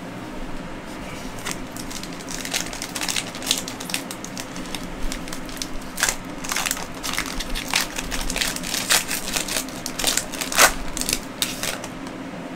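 Foil wrapper of a Panini Prizm Draft Picks trading-card pack crinkling and crackling in irregular bursts as it is opened by hand, the loudest crackles about halfway through and near the end.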